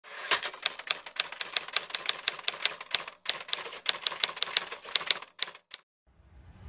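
Typewriter keystroke sound effect: a quick run of sharp key clacks, about four or five a second, with a short break about halfway through, stopping a second before the end. Near the end a hissing swell begins to rise.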